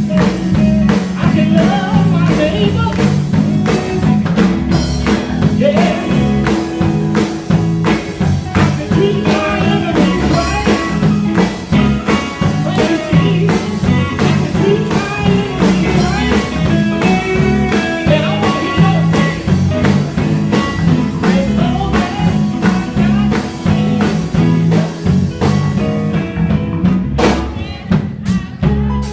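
Live gospel band playing, with drum kit, bass and electric guitar under group singing at a steady beat; the sound thins out near the end.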